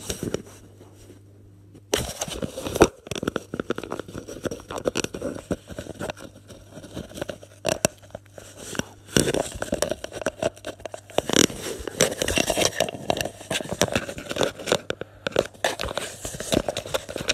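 Cardboard crackling and scraping as a cat rubs and bites at the edge of a round hole in a cardboard box, a dense run of irregular clicks that starts about two seconds in.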